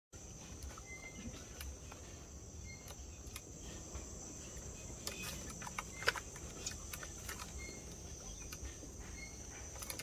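Faint outdoor insect chorus, a steady high-pitched drone throughout, with a few short chirps and scattered clicks on top.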